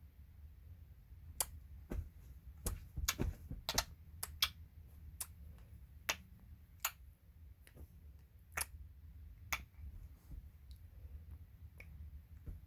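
A baby smacking her tongue: a dozen or so sharp, irregular clicks, coming thick and fast at first, then spaced out, with a few faint ones near the end.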